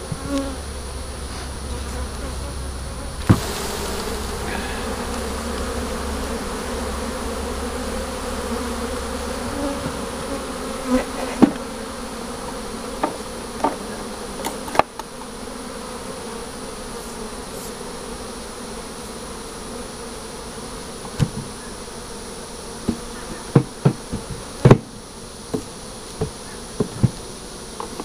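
Honeybees buzzing steadily around an open hive. A sharp knock about three seconds in, and a run of short sharp knocks and clicks in the second half.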